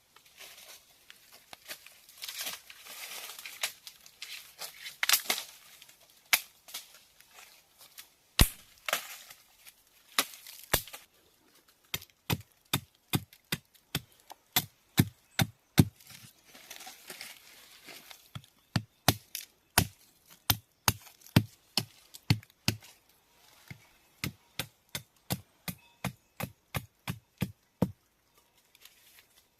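Rustling and tearing of plant material, then a knife or machete chopping wood with sharp strikes about two a second and a few short pauses, as sticks are cut.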